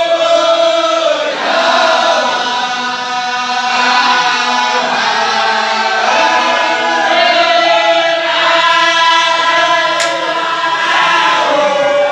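A group of men chanting a wadifa together, a Comorian Sufi devotional chant sung in unison as one continuous, gliding melodic line.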